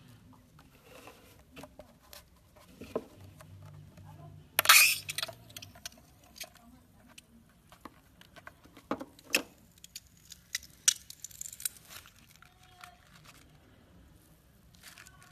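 Scissors cutting into a slime-filled rubber balloon, with one loud tearing burst about four and a half seconds in. Then slime is squeezed out of the cut balloon into a plastic bowl, giving irregular sticky crackles and clicks.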